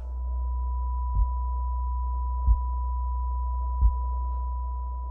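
Designed film soundtrack: a steady high ringing tone held over a deep low hum, with a dull low thump about every 1.3 seconds, five times.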